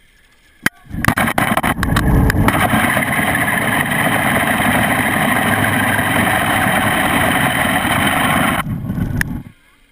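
Zipline trolley pulleys running along a taut steel cable: a few clicks as the gear goes onto the line, then a loud, steady whirring rush for about eight seconds that stops abruptly near the end.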